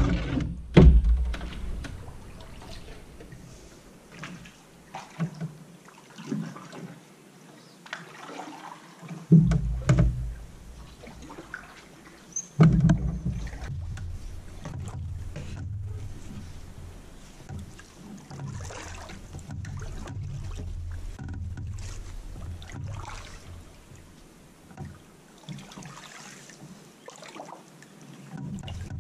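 Canoe hull and paddle knocking against wooden bridge pilings while drifting. There are heavy thumps at the start, about ten seconds in and again near thirteen seconds, small knocks and rustles between them, and a low rumble through the middle stretch.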